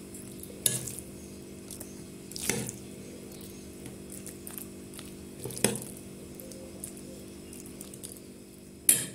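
Metal spoon clinking and scraping against a glass mixing bowl four times while scooping a rice-and-mince filling into hollowed zucchini shells.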